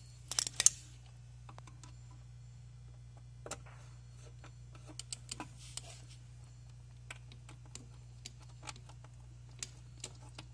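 Scattered light clicks and taps from handling wires and plastic parts while a ground wire is pushed into a hot tub control pack's terminal block. The clicks are loudest in a quick cluster right at the start, then come singly, over a steady low hum.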